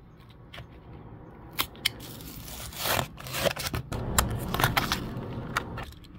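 Die-cast toy car's blister pack torn open by hand: cardboard backing ripping and the plastic bubble crackling. A couple of sharp clicks about a second and a half in, a louder tear around three seconds in, then a quick run of snaps and crackles.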